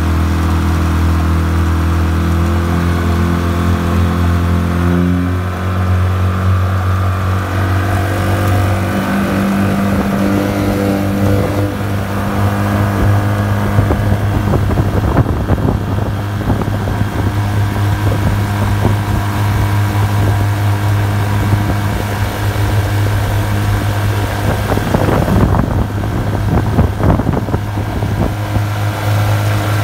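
A 30 hp outboard motor running at speed, pushing the boat along, with its steady engine note shifting pitch about five and nine seconds in. Water rushes and splashes against the hull over the motor, most strongly about midway and again near the end.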